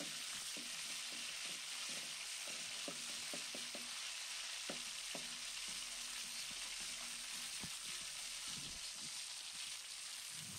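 Shrimp paste (terasi) frying in hot oil in an aluminium wok over low-to-medium heat: a steady sizzling hiss, with light scraping strokes from a metal skimmer stirring it.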